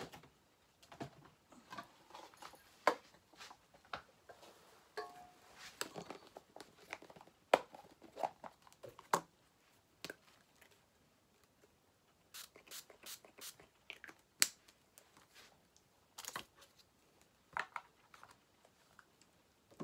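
Irregular clicks, knocks and paper rustling of craft materials and small objects being handled and moved about.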